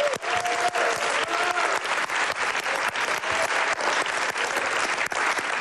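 Studio audience applauding steadily: many hands clapping together.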